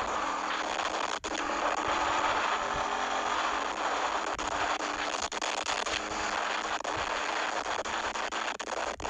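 Wind rushing over the microphone of an action camera mounted with no protective casing on a moving motorcycle. It is a loud, steady, storm-like rush that largely drowns out the engine, broken by a few brief dropouts.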